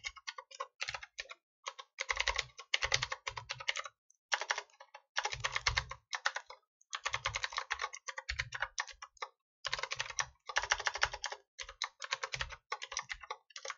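Typing on a computer keyboard: quick runs of key clicks in bursts, broken by short pauses.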